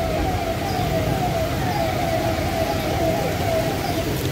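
Vehicle siren sounding a fast repeating wail, each sweep falling in pitch, about two a second. It cuts out near the end, over a steady low rumble.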